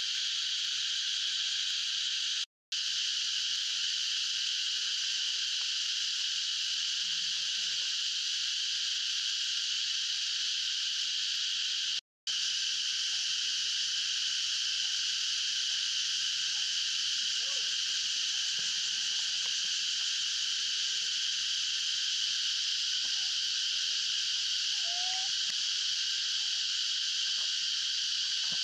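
Dense, steady, high-pitched chorus of calling animals, the even drone of many insects or frogs together. It cuts out for an instant twice early on.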